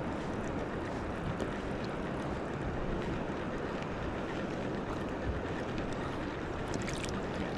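Wind on the microphone and choppy water lapping: a steady rushing noise, with a few faint ticks near the end.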